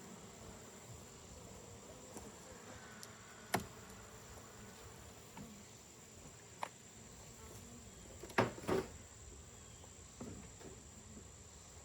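Honeybees buzzing steadily around an open hive, with a few sharp knocks and clicks; the loudest is a pair of knocks about eight and a half seconds in.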